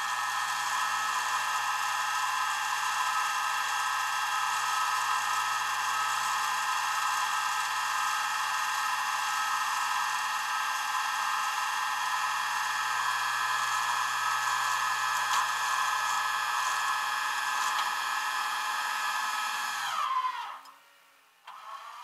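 Flatbed tow truck's winch running with a steady high whine as it pulls a car up the bed. About 20 seconds in it winds down with a falling pitch, then runs again briefly near the end.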